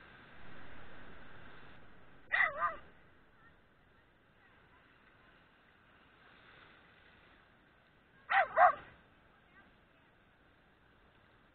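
A dog barking in two quick double barks, about six seconds apart.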